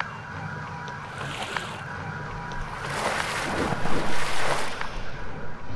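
Liquid spraying and splashing, a noisy rush like waves that grows louder and surges about three seconds in.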